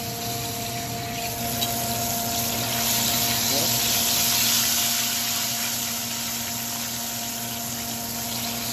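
Breaded chicken deep-frying in a pot of hot oil: a steady sizzle that swells for a couple of seconds around the middle, over a steady hum.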